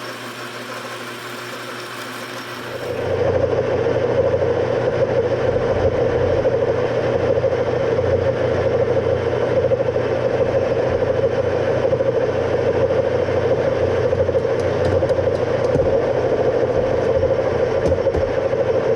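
Engine lathe running steadily while turning a workpiece under power feed. About three seconds in, the sound becomes louder and rougher and stays that way, consistent with the tool biting into the work.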